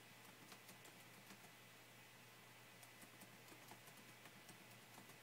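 Near silence: room tone with a faint steady low hum and a few faint small clicks.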